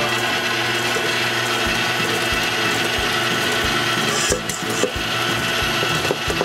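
KitchenAid stand mixer running steadily, its motor humming as the flat beater turns through cookie dough, with a regular low thump as the beater goes round.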